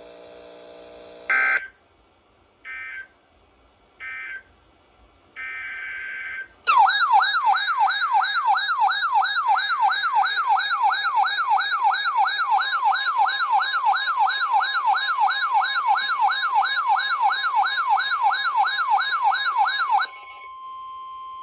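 Emergency Alert System signalling between two tornado warnings. First come four short digital data bursts, the last one longer. Then a loud warbling, siren-like alert tone sweeps up and down about two and a half times a second for some thirteen seconds, and near the end it gives way to a steady single tone.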